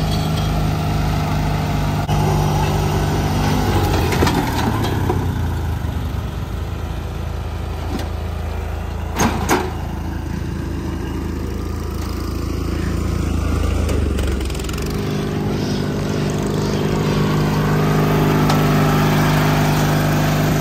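Huskee riding lawn mower's engine running, its pitch shifting a few seconds in and again about two-thirds of the way through. Two sharp knocks about nine seconds in.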